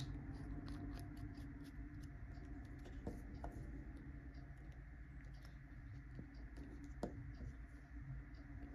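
Handling noise from a Parker 61 fountain pen being put together: a sharp click at the start and a run of faint ticks over the next couple of seconds as the barrel goes onto the section. A few more separate clicks follow, the clearest about seven seconds in as the steel cap is pushed onto the pen.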